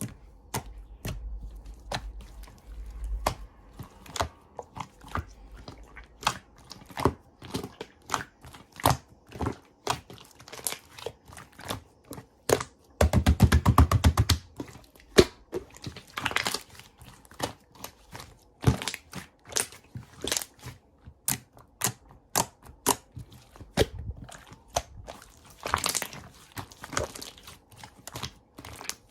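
Close handling sounds: irregular taps and clicks with light crinkling, and a quick rattle of many rapid strokes about halfway through.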